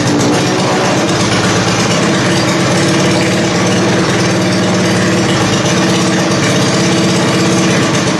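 Modified single-cylinder small engine on a cyclekart running at a steady idle, on its first run after being fuelled and started.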